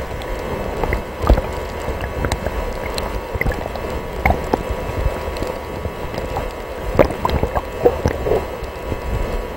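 Underwater ambience heard through a submerged camera: a muffled low rumble of moving water with scattered sharp clicks and pops, the loudest about a second in and again near seven and eight seconds in.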